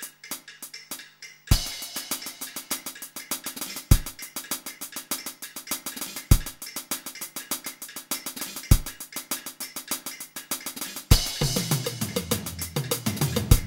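Instrumental music with a drum-kit beat: fast, even ticks over a heavy hit about every two and a half seconds. The full beat comes in about a second and a half in, and a bass line joins near the end.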